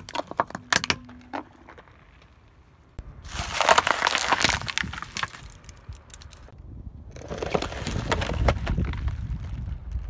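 Car tyre rolling over and crushing brittle objects: a few sharp cracks and clicks in the first second and a half, then two long spells of dense crackling crunch, one from about three seconds in and one from about seven seconds in, with a low tyre rumble under the second.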